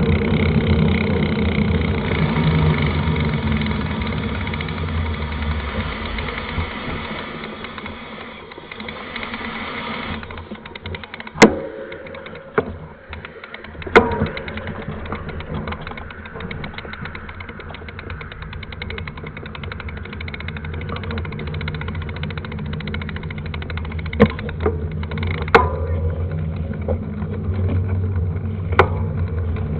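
Mountain bike ridden over a dirt trail: steady tyre and wind rumble that eases off near the middle, then a fine rapid ticking with several sharp knocks and rattles as the bike goes over bumps.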